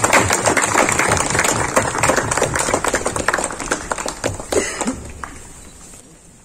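A small group clapping by hand, the applause thinning out and dying away about five seconds in.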